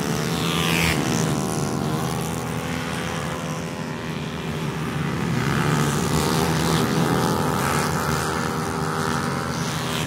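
Several 160cc automatic racing scooters running hard past on the track. A high engine whine falls in pitch about a second in as one goes by, and other engines rise and fall as the riders brake and accelerate through the corners.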